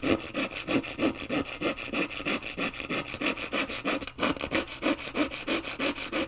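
Hacksaw cutting wood in quick, even back-and-forth strokes, about four a second, with a brief break about four seconds in.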